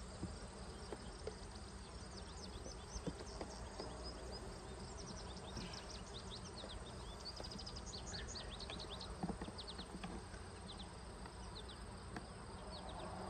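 Honeybees humming faintly around an open hive, with a few light knocks of wooden frames being handled. A run of short, high chirps comes and goes in the middle.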